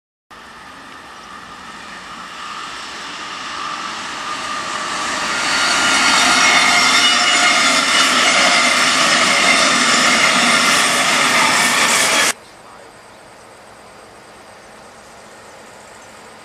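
Double-deck regional passenger train passing close on electrified track: its running and wheel-on-rail noise, with steady high whining tones, grows louder over about six seconds and holds. About twelve seconds in it cuts off abruptly, leaving a much quieter steady background noise.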